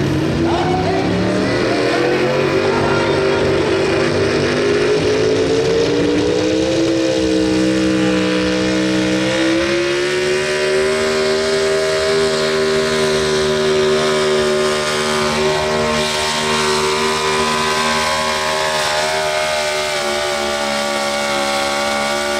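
Pro stock 4x4 pulling truck's engine at full throttle through open exhaust stacks, dragging a weight-transfer sled. The pitch climbs over the first few seconds, rises again about ten seconds in, then holds high and steady as the truck grinds down the track under load.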